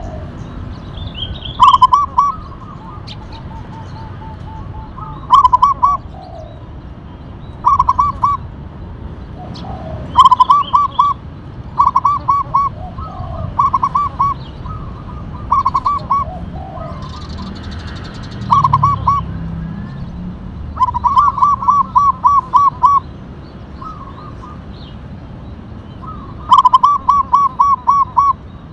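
Zebra dove (perkutut) singing: short runs of quick staccato cooing notes, one run after another every two seconds or so.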